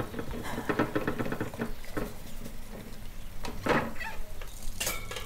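Dish brush scrubbing in a plastic washing-up bowl of soapy water with the tap running: a quick run of scratchy brush strokes and splashes, then a louder swish about three and a half seconds in and another near the end.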